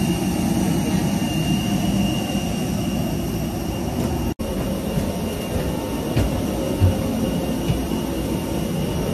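Steady roar of jet aircraft on an airport apron, with a thin high whine running through it. The sound drops out for a split second a little before halfway, and a few short low thumps come later.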